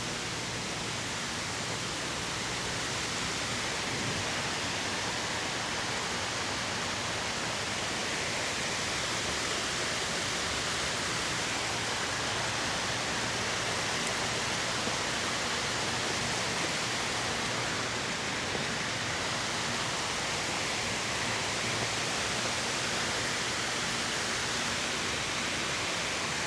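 Steady rush of water falling in a large circular fountain.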